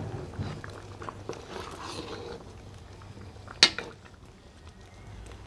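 A metal ladle stirring thick, simmering potato and yam curry in a large metal kadhai. Soft wet stirring sounds and small clicks, with one sharp clink of the ladle against the pan about three and a half seconds in.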